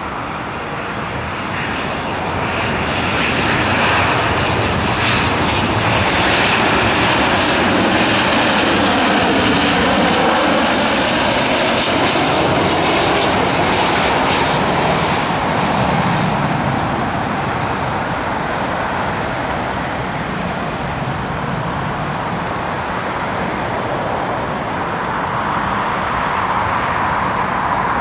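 Boeing 737-700 airliner's CFM56-7B turbofan engines on landing approach: a steady jet rumble with a high fan whine that swells over the first few seconds, stays loudest for about ten seconds as the jet passes close by, then eases as it moves away toward the runway.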